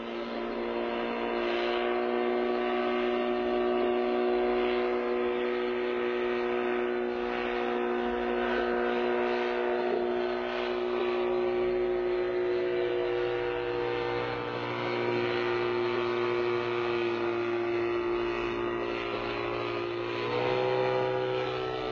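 Engine and propeller of a small gyrocopter flying overhead, a steady droning hum. It rises in pitch near the end.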